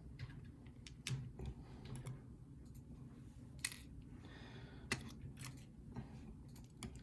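Faint, irregular small metallic clicks and taps from pin tumblers and springs being handled as a mortise lock cylinder is taken apart, about eight clicks in all.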